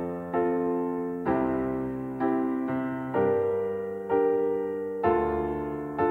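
Solo piano playing slow, quiet chords in an epic cinematic track, a new chord struck about once a second and fading away before the next.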